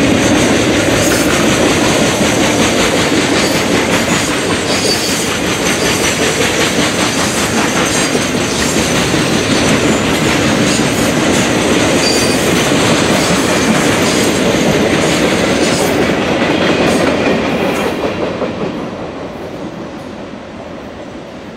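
Freight train cars rolling past close by: Triple Crown RoadRailer trailers on their rail bogies, then autorack cars, wheels clicking over rail joints under a steady rumble, with a couple of brief high wheel squeals. The noise falls off over the last few seconds.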